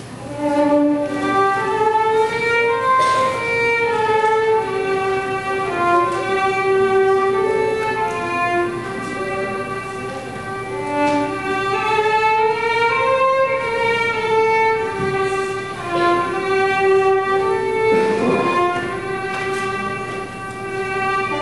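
Solo violin playing a slow, smooth melody, one note flowing into the next.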